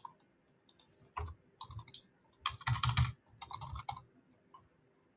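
Typing on a computer keyboard: a short run of irregular keystrokes, bunched together about halfway through.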